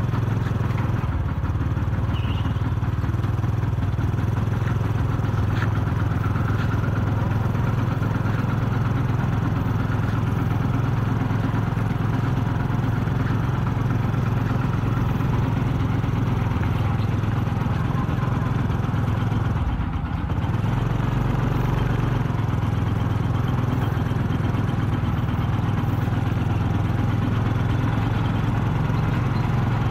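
Kubota RT-120 Plus two-wheel tractor's single-cylinder diesel engine running steadily as a low drone while it hauls a loaded rice trailer. The engine note dips briefly about two-thirds of the way through.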